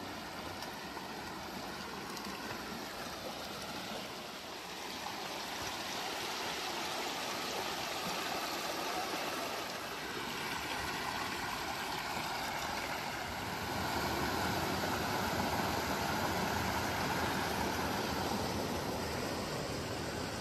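A creek running high after heavy rain, rushing steadily over granite rocks. The rush of water grows louder about a quarter of the way in and again a little past halfway.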